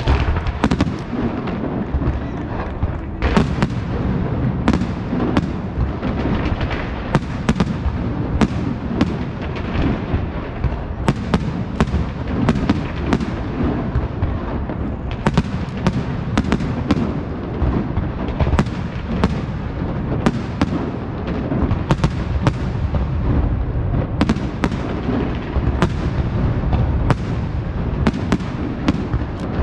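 Castillo fireworks show by Pirotecnia Martí: aerial shells launching and bursting in rapid succession, sharp cracks several times a second over a constant low rumble of detonations.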